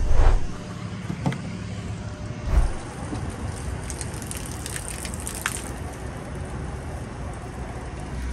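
A vehicle engine idling steadily, with two thumps and a run of light clicks over it, as from a hose and its fittings being handled.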